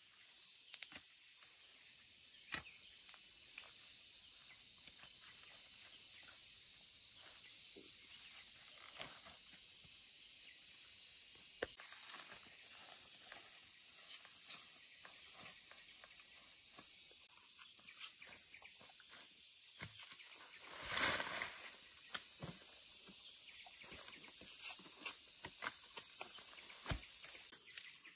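Faint outdoor ambience: a steady high hiss with scattered small clicks and light rustling, and faint short high chirps in the first third. A louder rustling burst comes about three-quarters of the way through.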